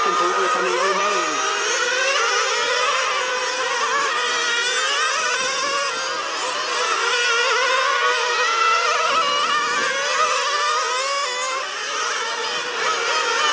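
Several nitro radio-control race cars' small glow-fuel two-stroke engines running at high revs, their pitches gliding up and down and overlapping as the cars accelerate and slow around the track.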